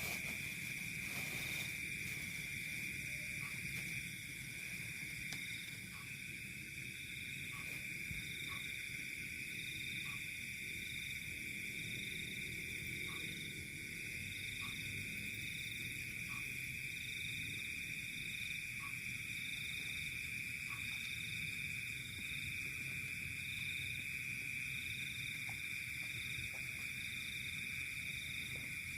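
Night chorus of insects and frogs: a steady high-pitched buzz, with a second, higher call pulsing on and off in a regular rhythm over it and faint scattered ticks.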